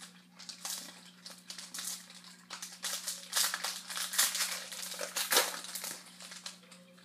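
Foil wrapper of a pack of hockey trading cards crinkling as it is torn open and handled, in irregular rustling bursts that are loudest midway.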